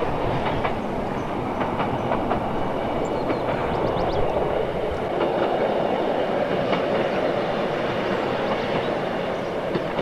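Two-car diesel passenger train running across a viaduct: a steady rumble of engine and wheels on rail, with scattered sharp clicks in the first few seconds.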